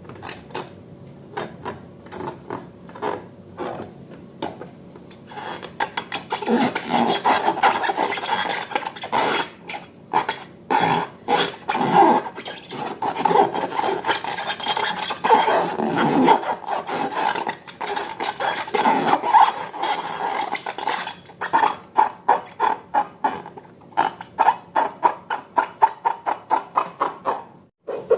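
Slime being squished and stirred: a run of wet, sticky clicks and pops, sparse at first, busier from about six seconds in, and a quick even series of about three a second near the end.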